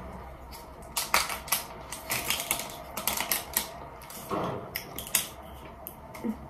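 Thin plastic water bottle crackling in the hand, with a quick, irregular run of sharp clicks as it is gripped and its cap is twisted closed.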